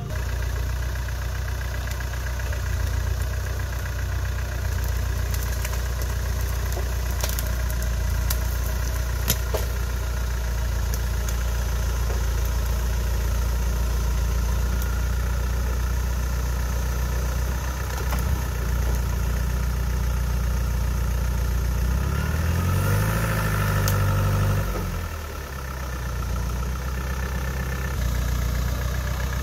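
Off-road 4x4's engine idling steadily. Its revs rise briefly about three quarters of the way through, then drop back to idle. A few sharp clicks sound in the first third.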